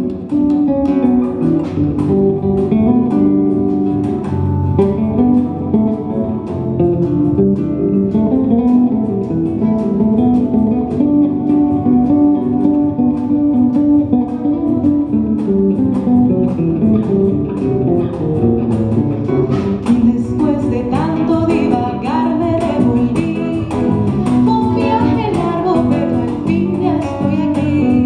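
Live Colombian song with a jazz and Brazilian feel, played by a small band of acoustic guitar, electric bass and percussion, with a woman singing. About twenty seconds in, a wavering melody line comes in over the band.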